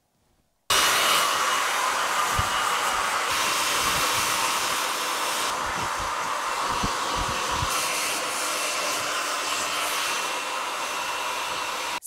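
BaByliss Super Power Pro 2400 hairdryer blowing, a steady loud rush of air that starts abruptly under a second in. A few low thumps sound under it, mostly in the middle of the stretch.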